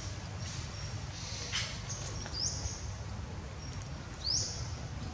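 Birds calling in the surrounding trees: short high chirps, two of them quick rising sweeps, the second the loudest, over a steady low rumble of background noise.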